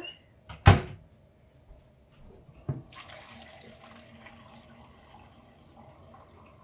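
A sharp knock, then a kitchen tap turned on and running steadily from about three seconds in, filling a vessel with water.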